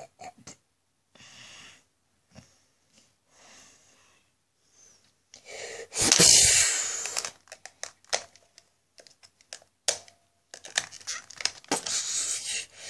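Scattered clicks and rustles of plastic action figures and a toy ship being handled. About six seconds in there is one loud, breathy burst of noise lasting about a second, and a thicker run of clicks and rustles follows near the end.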